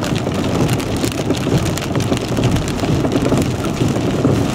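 Heavy wind-driven rain pelting a car's windshield and roof, heard from inside the cabin as a dense, steady patter. Strong wind buffets the car, giving a low rumble underneath.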